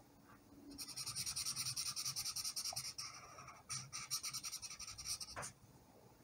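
Felt-tip marker rubbing on paper in quick back-and-forth colouring strokes, faint. The strokes pause briefly about three seconds in, then go on again.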